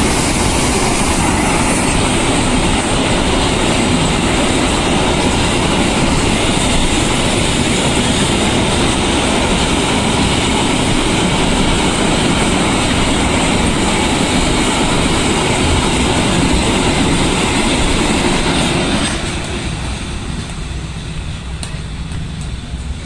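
Loaded container freight train's wagons rolling past on the rails with a steady, loud wheel-and-rail noise. About 19 seconds in the noise drops off as the end of the train passes and moves away.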